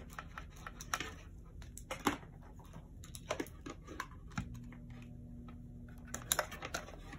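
Scattered clicks and knocks of a power cord and plug being handled, then, about four and a half seconds in, a steady low electrical hum from a Jiasheng nail drill's control box that lasts about two seconds. The owner suspects the unit is defective because it hums as soon as it is plugged in.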